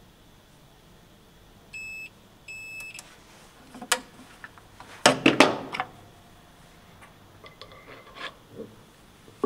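Induction bearing heater beeping twice, the second beep longer, to signal that the bearing has reached temperature. Then come metallic clunks and clatter, loudest about five seconds in, as the hot bearing is lifted off the heater and pushed onto the motor shaft.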